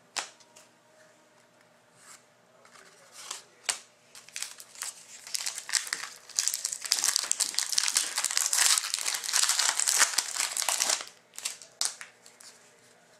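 Wrapper of a Panini Select hockey card pack crinkling and tearing as the pack is opened by hand, densest from about five seconds in to about eleven. Before that, a few light clicks of cards being handled.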